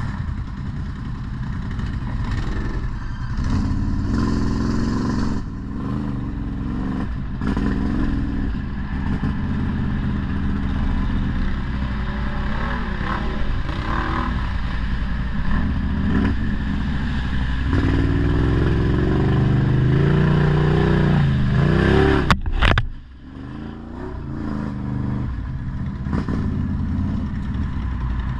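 ATV engine running under load, its pitch rising and falling as it is revved and eased off. About three-quarters of the way through, the sound breaks off sharply and comes back quieter.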